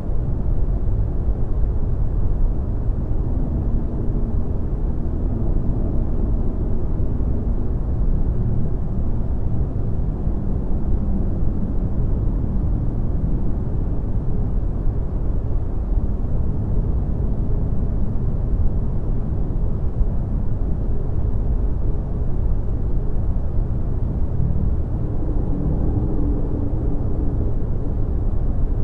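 Steady deep rumbling drone, with faint wavering tones sounding above it, unbroken throughout.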